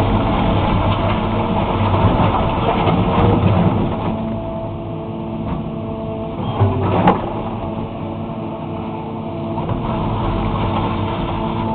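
Excavator's diesel engine running under digging load, its level swelling and easing. A single sharp clank about seven seconds in is typical of the bucket striking the asphalt it is stripping.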